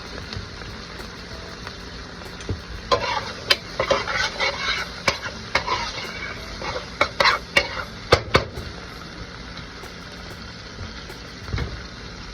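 Green pepper and onion sizzling in garlic butter in a pan. From about three to eight seconds in, a utensil stirs and scrapes against the pan in a quick run of clicks and scrapes, with a few more knocks near the end.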